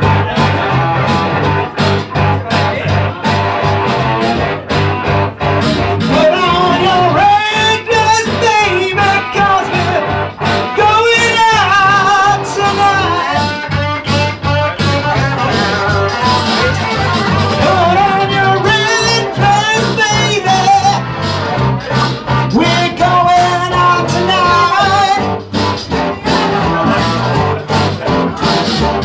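Live rock band playing: electric guitar, electric bass and acoustic guitar, with a man singing into a microphone.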